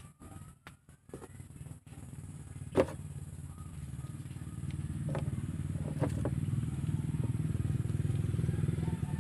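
A low, steady engine sound that grows louder from about two seconds in, with one sharp click near three seconds and a couple of fainter clicks later.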